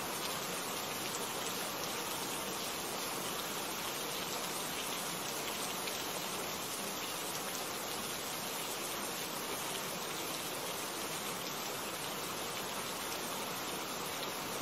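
Steady rain, an even, unbroken hiss of falling drops.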